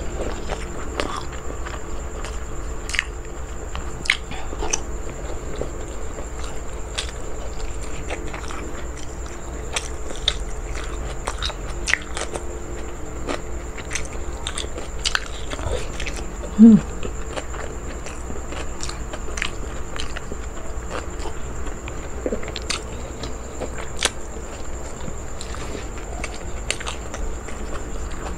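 A person chewing and biting food close to the microphone, with many small wet mouth clicks scattered irregularly, and one brief louder sound about seventeen seconds in.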